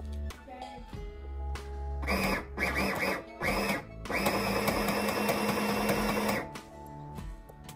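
Singer M1000 sewing machine stitching through a scrap sock as a test of its threading. It runs in four short bursts about two seconds in, then in one steady run of about two seconds.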